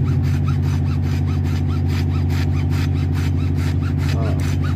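Marine diesel engine on a tugboat running steadily, with a low hum and an even pulsing beat several times a second.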